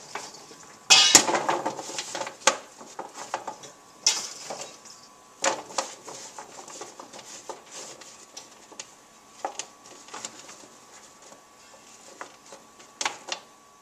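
Raw sweet potato strips being tipped and pushed around by hand on an aluminium sheet pan: irregular clattering knocks and slides of the pieces on the metal, with a loud burst of clatter about a second in.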